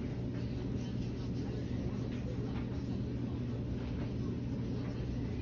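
A steady low hum with faint scattered ticks.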